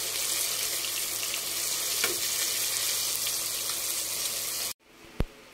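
Flour-coated chicken pieces deep-frying in hot oil: a steady bubbling sizzle with small crackles. It cuts off abruptly near the end, followed by a single sharp click.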